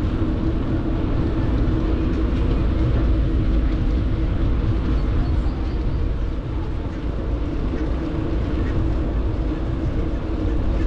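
Metro train running: a steady low rumble with a constant hum.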